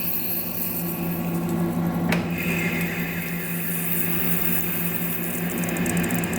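Lathe running with a steady hum while a carbide insert cuts a steel pin, with a brighter cutting noise coming in after a single sharp click about two seconds in.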